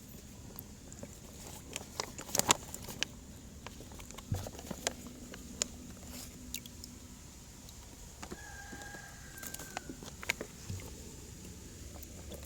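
Scattered sharp clicks and light knocks of handling, loudest in a quick cluster about two seconds in, over a faint low hum. A faint, steady whistle-like tone sounds for about a second and a half past the middle.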